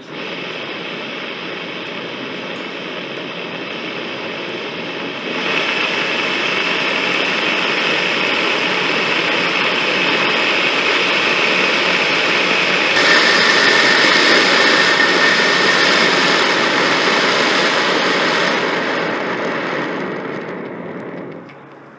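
Small test rocket motor with an acrylic fuel block firing: a steady rushing exhaust noise that grows louder about five seconds in and again about halfway through, then fades and dies away near the end as the burn finishes.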